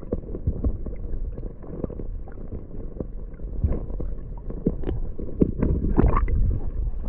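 Stream water heard from underwater: a muffled low rush with scattered small clicks and knocks, which come more often in the second half.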